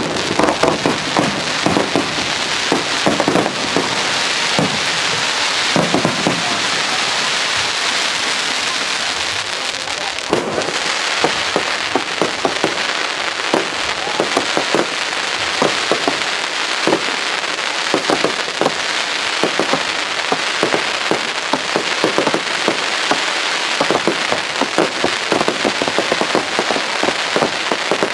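Fireworks display: a continuous barrage of bangs from bursting aerial shells over dense crackling. The crackling haze is heaviest from about 3 to 10 seconds in, and the separate bangs come thicker in the second half.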